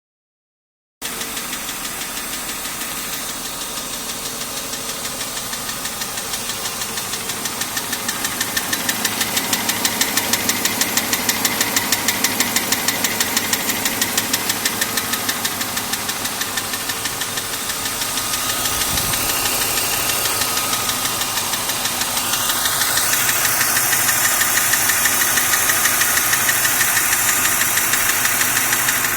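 BMW M52 straight-six engine running with a fast, even ticking that sounds like tappet noise. It appears only once the engine is above about 85 °C and has persisted after the hydraulic lifters and their guides were replaced; hot oil pressure measured at the cylinder head is low, 2.25 bar at 5000 rpm.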